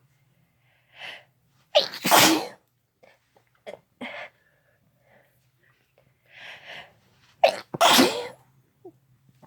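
A person sneezing twice, about six seconds apart. Each loud sneeze follows a short, fainter breath in.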